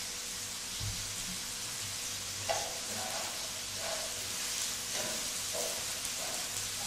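Chicken and vegetable strips with freshly added shredded cabbage sizzling in a hot pan over medium-to-high heat, with a steady frying hiss. A wooden spatula stirs through them, giving a low knock about a second in and a run of short scrapes from about two and a half seconds on.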